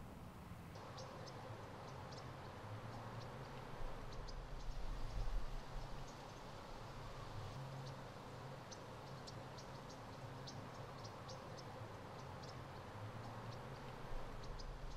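Faint outdoor ambience: many short, high chirps scattered throughout over a steady low hum, with a low rumble that swells about four to six seconds in.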